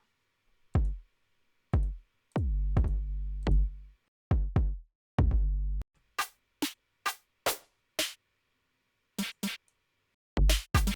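Electronic drum-machine pattern played back in a DAW: deep kick drums that drop in pitch, two held on as long low tones, then sharp snare- and hi-hat-like hits from about halfway, in an uneven rhythm.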